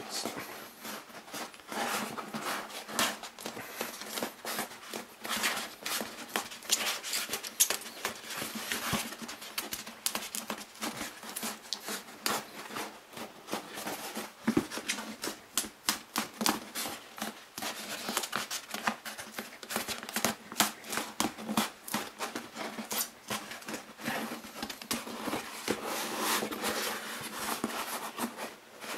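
Hands pressing and rubbing a soft foam mask shell along its joined seam, giving a dense, irregular stream of scratchy rubbing and small clicks. The seam is being pressed down firmly to set the joint.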